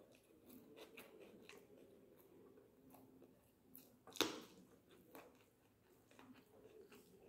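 Faint chewing and mouth sounds of someone eating by hand, with one louder sharp click about four seconds in.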